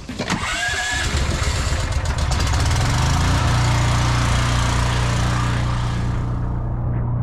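Petrol engine of a pressure washer starting up and settling into steady running.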